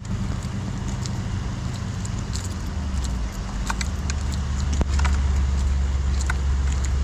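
Steady low rumble that grows louder about halfway through, with light clinks at irregular moments from a plastic bucket's wire handle rattling as it is carried.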